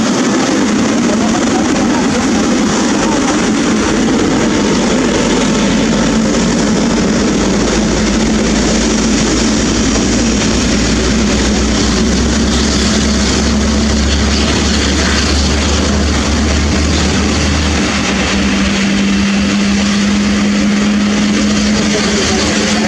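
Boeing 777-300ER's twin GE90 turbofan engines running at taxi power as the airliner taxis past and turns toward its stand: a loud, steady jet roar. A steady low hum grows stronger over the last few seconds.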